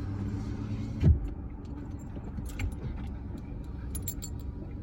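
Car cabin noise while driving slowly: a steady low engine and road rumble, with one low thump about a second in and a few light clicks near the end.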